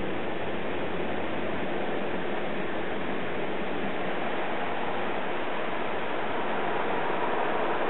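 Water spraying and running over a car's windscreen, heard from inside the car: a steady rushing hiss.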